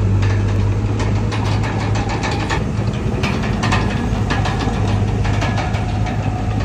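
Komatsu D31PX crawler bulldozer's diesel engine running under work, with frequent metallic clanks and rattles; a faint whine rises slightly in pitch from about halfway through.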